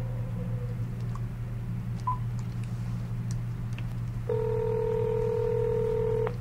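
Packet8 Tango videophone playing the ringback tone of an outgoing call: one steady ring about two seconds long, starting a little past four seconds in, over a constant low hum. Two brief faint beeps come about one and two seconds in.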